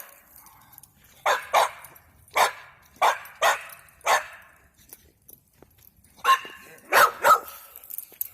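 Puppy barking: about nine sharp barks, six in quick succession, then a pause, then three more near the end.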